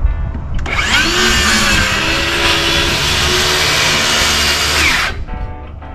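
A cordless circular saw spins up and cuts through a wooden deck board for about four seconds, then cuts off and winds down near the end.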